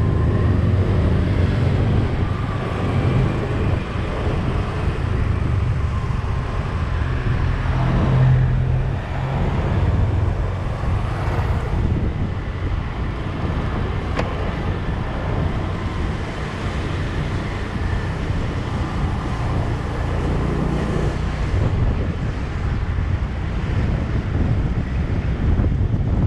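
Engine and road noise of a moving vehicle, heard from on board: a steady low rumble, briefly louder about eight seconds in.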